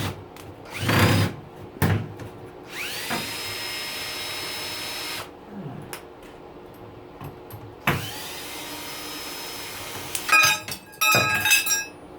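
Cordless drill-driver unscrewing a dishwasher door handle: twice the motor whines up in pitch and holds for a couple of seconds, with a few knocks early on. Near the end the loose metal handle is knocked about, giving a tinny ring typical of stainless steel.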